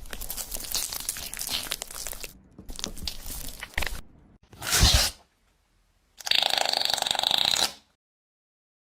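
Crunching and scraping sounds of food being prepared, in two spells of crackly noise. About five seconds in comes a short loud swell, then a steady machine-like noise lasting about a second and a half that cuts off sharply.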